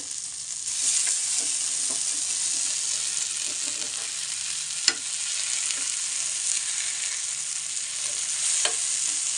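Oil sizzling steadily around masala-coated fish shallow-frying in a flat pan, the sizzle growing a little louder about a second in. A metal spatula scrapes and taps in the pan while turning the fish, with a sharp clink about halfway and another near the end.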